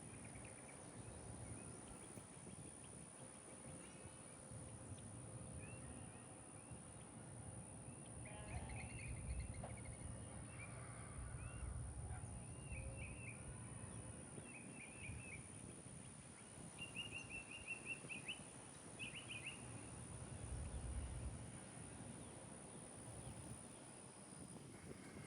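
Faint outdoor bird calls: a scattering of short chirps and one quick trill of about eight notes, over a low rumble.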